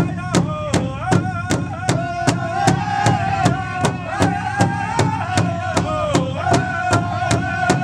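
A flute plays a sliding, bending melody over a steady drumbeat of about two and a half beats a second.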